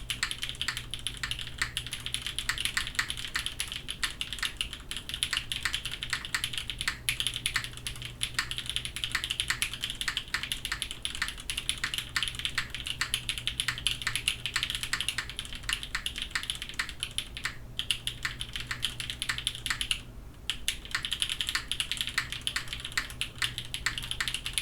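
Continuous typing on a Krush65 mechanical keyboard built O-ring mounted with a carbon-fibre plate and Milky Raccoon switches: a fast, steady stream of keystroke clacks, with a short break about twenty seconds in.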